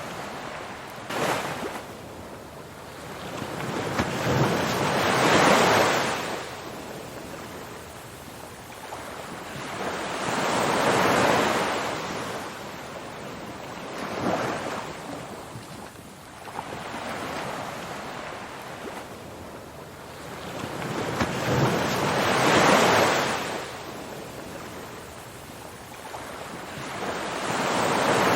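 Ocean surf: waves breaking and washing in, swelling and fading about every five to six seconds, with a short sharp splash about a second in.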